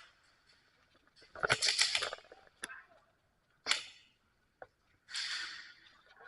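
Airsoft guns firing: a short rapid burst about a second in, then single sharp shots, and a brief hissing burst near the end.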